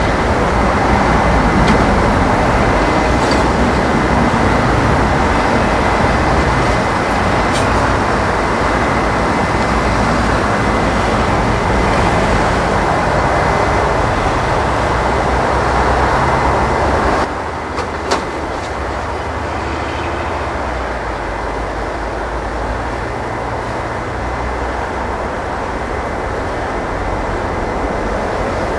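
Steady rumbling roar of an Airbus A321's jet engines on final approach. The level drops suddenly about seventeen seconds in and then runs on at a lower level.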